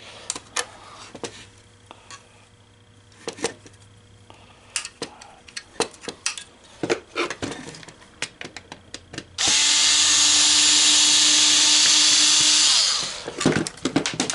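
Scattered clicks and light clatter of small parts being handled, then a power drill runs steadily for about three and a half seconds, starting about nine seconds in.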